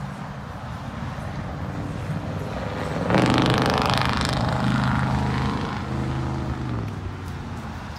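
A motor vehicle passing close by on the road over a background traffic rumble. It comes in suddenly about three seconds in with a loud rush and a steady engine note, then the note drops in pitch and fades about seven seconds in as it goes past.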